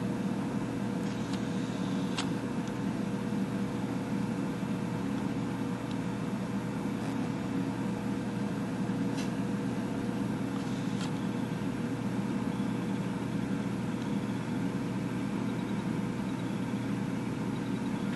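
Steady low mechanical hum with a thin held tone in it, like a fan or small motor running in the room, broken by a few faint clicks.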